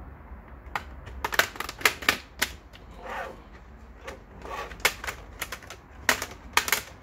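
Plastic case clips of an Acer Aspire 3 laptop snapping loose in an irregular run of sharp clicks as the case is pried apart, with two brief creaking scrapes in the middle.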